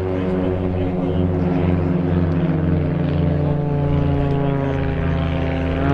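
Piston engines and propellers of small aerobatic biplanes (Pitts Special, Christen Eagle II, Ultimate 10-300) droning overhead, several engine notes at slightly different pitches. Near the end one note drops in pitch as a plane passes.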